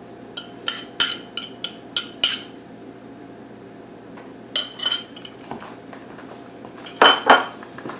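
A fork and a wooden spoon clinking and scraping against a small ceramic dish and a mixing bowl while beaten egg is scraped out into ground beef. A quick run of about seven sharp clinks in the first two seconds, a few more around the middle, and a louder couple near the end.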